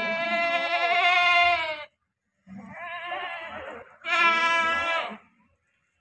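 Goats bleating: a long, loud, wavering bleat that breaks off about two seconds in, then a rougher, hoarser bleat and another loud bleat, each about a second long.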